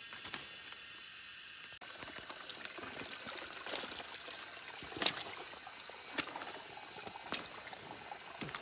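A small forest stream trickling over stones and leaf litter, coming in about two seconds in, with a few sharper splashes or clicks about a second apart.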